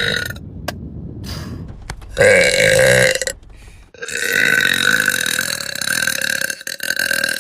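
A woman's deep burps releasing trapped gas. There is a loud burp about two seconds in, then a long, drawn-out burp from about four seconds in that is still going at the end.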